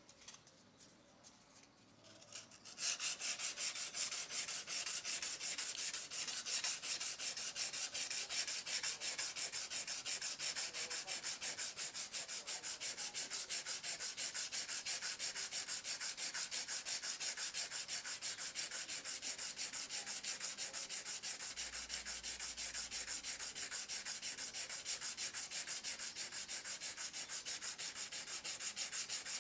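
Sandpaper rubbed by hand over a laser-engraved metal watch dial blank in quick, even back-and-forth strokes, starting about three seconds in. This is the dial's surface being sanded smooth after engraving.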